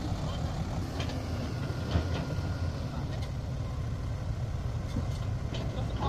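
Diesel engines of an excavator and a dump truck running steadily at a dig site, a low even rumble with a few faint knocks.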